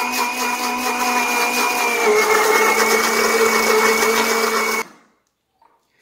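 Electric blender running as it beats two eggs; its motor note drops a little about two seconds in, and it cuts off suddenly near the end.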